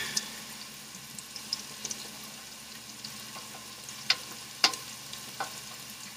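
Chili ingredients sizzling faintly in a large pan, with a few sharp clinks of a utensil against the pan, one at the start and a few more near the end.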